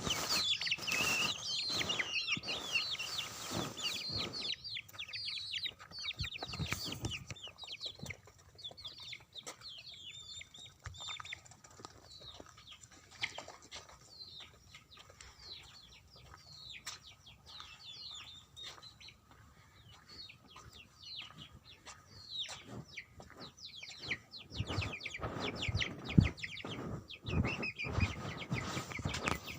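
Young chicks peeping constantly, many short high falling cheeps a second. There are louder knocks and rustling in the first few seconds and again near the end.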